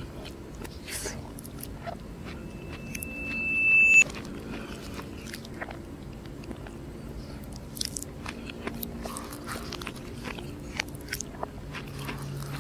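Close-up eating sounds: a plastic spoon scooping food in a paper bowl, with soft chewing, mouth noises and small clicks. About two seconds in, a steady high tone swells louder and cuts off abruptly around four seconds, like a sound played backwards.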